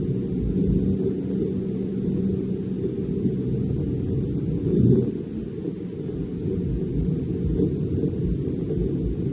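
Kobelco hydraulic excavator's diesel engine running as it works the bucket through loose soil: a steady low rumble that swells briefly about five seconds in.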